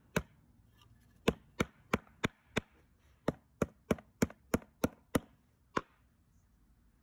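Sharp wooden taps as a milkweed stalk is struck against a wooden board, about three a second in short runs with brief pauses. The tapping loosens the outer bark so the fibre can be stripped.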